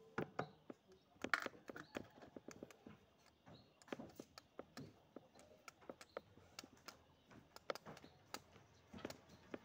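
Scattered light clicks and taps, irregular and a few each second, as small objects are handled and set down on a wooden tabletop.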